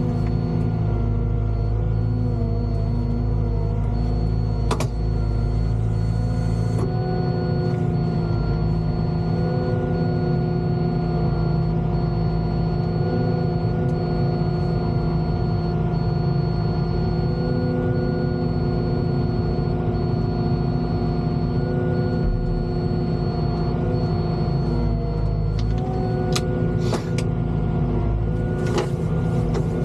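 Volvo EWR150E wheeled excavator's diesel engine running steadily under working load, with a steady hydraulic whine and a low rumble. A few brief clicks and knocks come through, mostly near the end.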